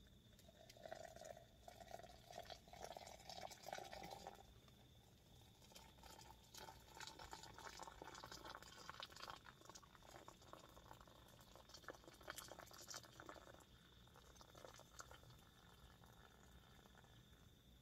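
Hot water poured from a kettle into a tall cup: a faint trickling fill that runs in two long stretches, with light clicks of a spoon stirring in the cup.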